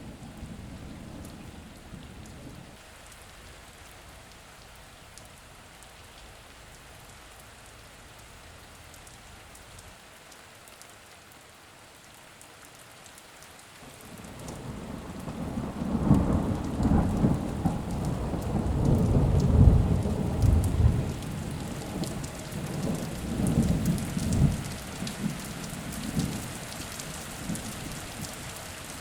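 Steady rain falling, with a long roll of thunder that builds about halfway through, rumbles at its loudest for several seconds in uneven surges, then fades back under the rain.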